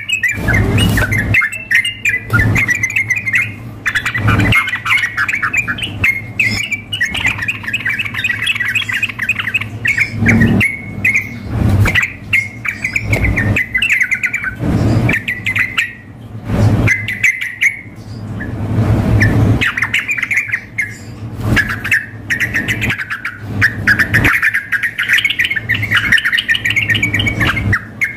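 Yellow-vented bulbuls (trucukan) calling and singing in rapid, bubbly chattering phrases with short pauses, in full loud song. Dull low thumps come every few seconds.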